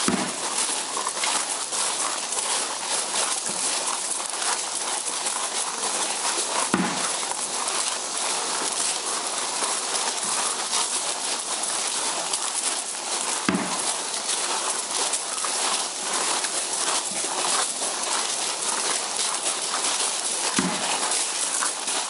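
Dense, steady insect chorus in the evening woods, a fine crackly hiss, with a single low thump about every seven seconds.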